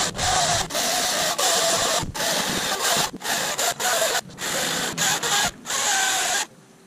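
EGO CS1800 18-inch 56-volt cordless chainsaw with an Oregon bar and chain, running and cutting through a log. It comes in short stretches broken by many brief gaps, and stops near the end.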